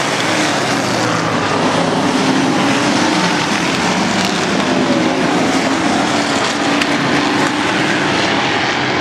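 A pack of Outlaw Sportsman stock cars racing at speed around a short oval, their engines making a loud, steady roar whose pitch wavers as cars pass.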